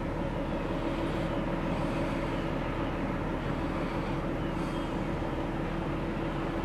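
Cargo ship's diesel engine running with a steady, even drone and a constant hum.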